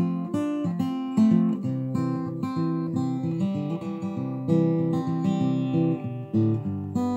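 Background music: a guitar riff of quickly picked notes and strums, with a steady beat of note attacks.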